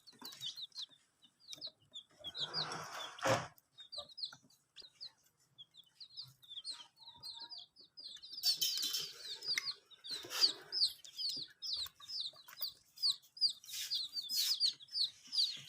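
Baby chicks peeping without pause, a rapid run of short, high, falling cheeps, with a few brief bursts of scuffling noise among them.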